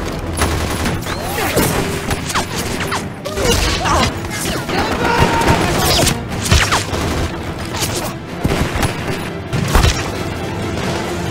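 Gunfire in a chase scene: irregular shots and bursts of gunfire, with music underneath.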